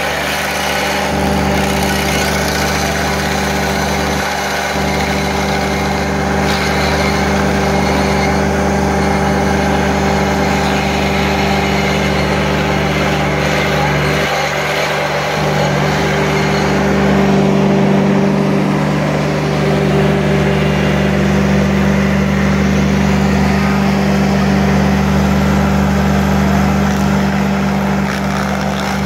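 Ditch Witch SK850 mini tracked loader running steadily under load while its hydraulic stump grinder attachment chews into a tree stump.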